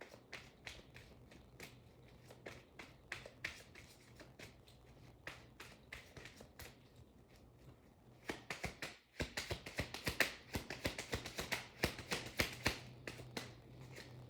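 Tarot cards being shuffled and handled: a run of soft card slaps and clicks that grows quicker and louder in the second half.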